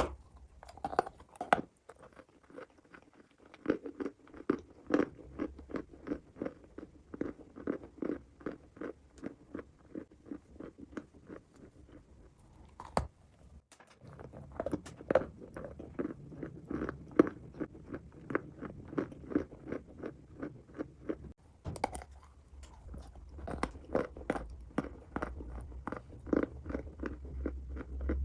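Close-up chewing of hard baked clay: a steady run of dry crunches, several a second, with two brief pauses.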